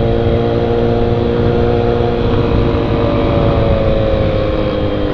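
Honda XR 250 Tornado's single-cylinder four-stroke engine running at a steady cruise, its pitch easing slowly down in the second half as the throttle comes off, over wind rumble on the helmet microphone.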